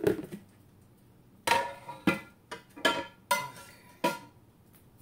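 Stainless steel frying pan clanking: about eight sharp metallic knocks, each ringing briefly.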